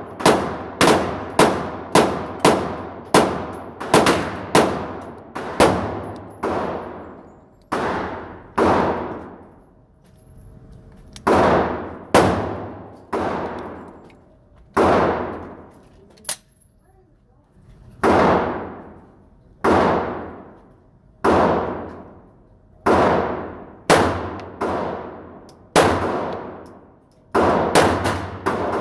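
A long string of 9mm pistol shots from a Glock 19 firing steel-cased ammunition, each one ringing out with a long echo in an indoor range. The shots come quickly for the first several seconds, then slow to roughly one every second or so.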